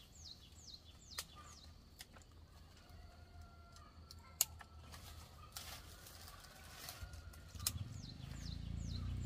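A bird calling a series of short, high chirps that each slide downward, about two or three a second, near the start and again near the end, with a few sharp clicks between. A low rumble rises near the end.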